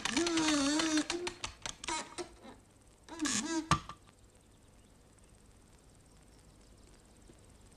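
Cartoon sound effects: a loud wavering, gliding pitched tone, then a run of short clicks, and a brief tone that ends in a sharp knock; quiet after about four seconds.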